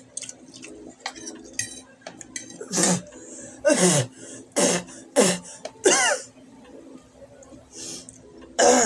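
A man letting out a run of short, loud cough-like vocal bursts, about six of them, several sliding down in pitch.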